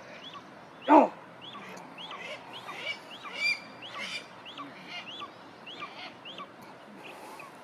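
Birds calling: a rapid series of short high chirps, about two or three a second, with one louder, lower call about a second in.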